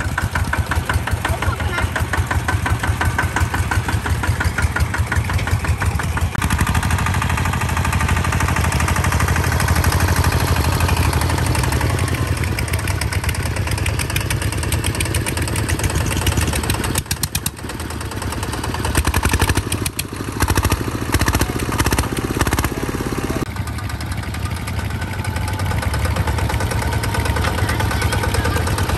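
Two-wheel walking tractors' single-cylinder diesel engines running with a steady, fast chug. About halfway through the engine note dips and then comes in uneven surges before settling back.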